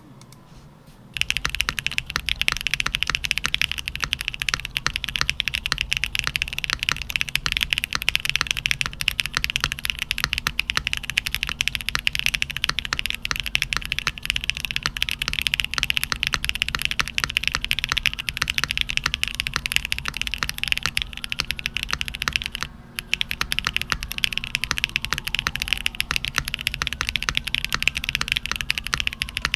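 Fast, continuous typing on a Mode Sonnet custom mechanical keyboard with factory-lubed Kailh BCP switches on an aluminum plate, top-mounted, with no foam inside. The keystrokes start about a second in and pause briefly once, about three quarters of the way through.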